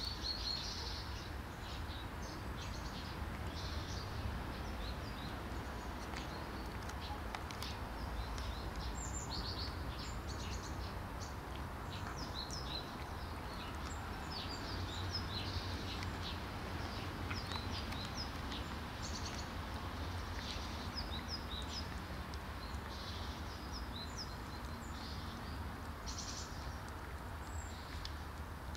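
Small birds chirping in short, scattered calls throughout, over a steady low background hum of outdoor noise.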